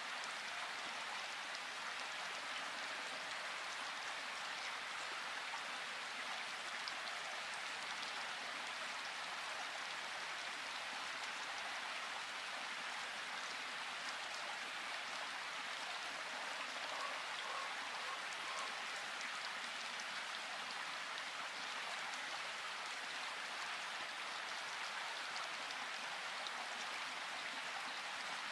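Steady, even hiss of noise that does not change.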